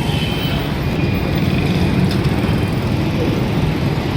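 Steady low rumble of busy street traffic, with no break or change.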